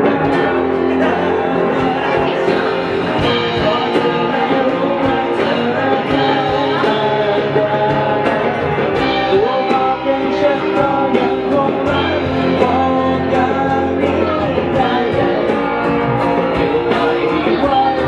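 Live amateur rock band playing a song: singing into a microphone over electric guitar, electric bass and acoustic guitar, with a steady beat.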